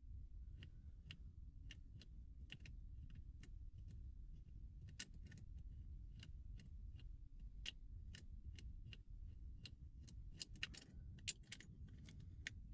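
Faint, irregular metallic clicks and ticks of a home-made bent-nail tension tool and wire pick working the levers of a Yale 3-lever mortice lock held in the hand, a couple of clicks a second with a low handling rumble underneath.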